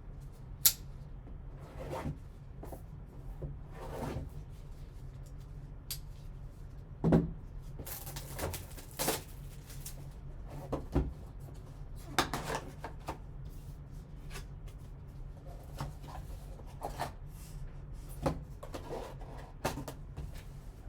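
Cardboard card box and its packaging being opened and handled: scattered clicks, taps and a few longer rustling scrapes, over a low steady hum.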